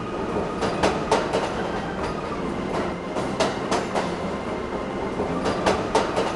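Train running on rails: a steady rumble with the wheels clattering over rail joints, three or four quick clicks about every two seconds.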